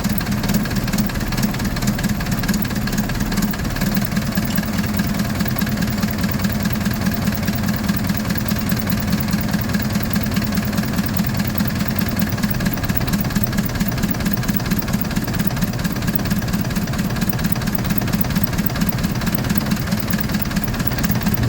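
Isuzu 4BC2 four-cylinder diesel engine running steadily at idle, after its injection pump has been cleaned and calibrated.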